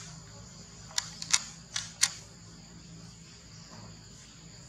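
Steady high-pitched insect drone, with a quick run of five sharp clicks about one to two seconds in.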